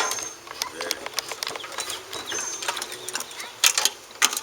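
Irregular metallic clicks and clanks of hand tools working on metal engine and bike parts, louder and denser near the end.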